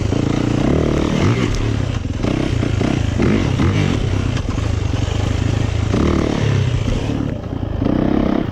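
A 2019 Yamaha YZ450FX dirt bike's single-cylinder four-stroke engine running hard while ridden off-road, its revs rising and falling with the throttle.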